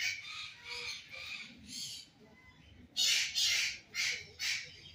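Parrots squawking in harsh, repeated screeches, a run of loud ones starting about three seconds in. The birds are stirred up at feeding time.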